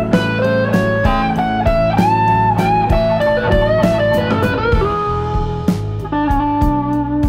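Background music: an electric guitar playing a melody over a steady beat and bass.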